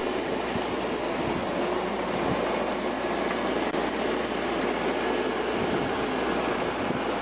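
Steady, even mechanical running noise from a large machine or vehicle, a constant rush without any beat or change.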